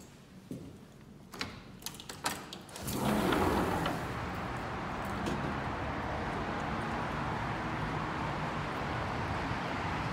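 Sliding glass balcony door unlatched with a few clicks and slid open; about three seconds in, steady outdoor street traffic noise suddenly comes in loud and carries on.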